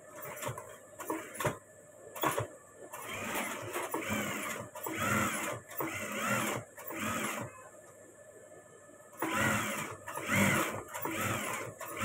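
Industrial single-needle lockstitch sewing machine stitching a shirt collar in short runs, the motor's pitch rising and falling with each run. A few clicks come first, and there is a pause of about a second and a half between two groups of runs.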